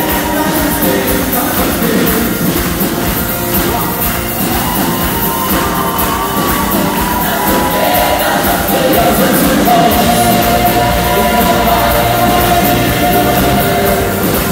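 Live rock band playing a song with guitars and drums and singing, loud and steady throughout, with a sung note held for a couple of seconds about two-thirds of the way in.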